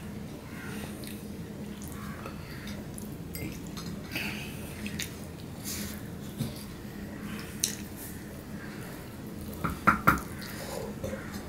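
Fingers scraping and wiping ceramic dinner plates, with scattered light clinks against the china. A cluster of sharper clinks comes near the end.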